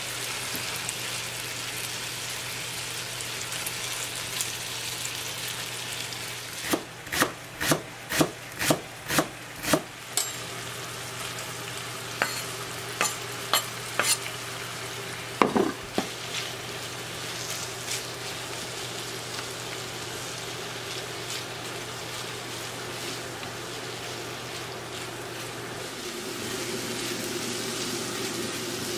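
Chicken pieces and sliced green onion frying in a pan, with a steady sizzle. About six seconds in comes a run of sharp knocks, roughly two a second, then a few more some seconds later. Near the end the sizzling grows a little louder as the pan is stirred.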